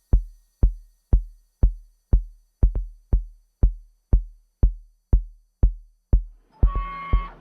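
Background electronic music: a kick drum beats alone about twice a second, then synth chords come back in near the end.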